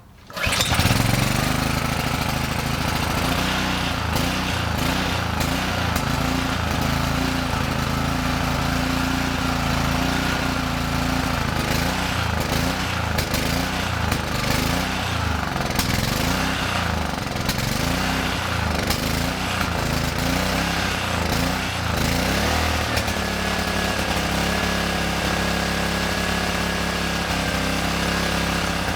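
Honda GCV160 single-cylinder engine on a Kärcher pressure washer catching and running on its first start after reassembly. The speed wavers unevenly for about twenty seconds, then settles to a steadier, slightly higher-pitched run.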